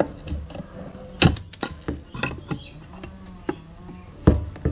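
Sharp snaps of cutters nipping off the ends of nails that stick through a wooden baseboard. There are two loud snaps about three seconds apart, with lighter clicks and taps between them.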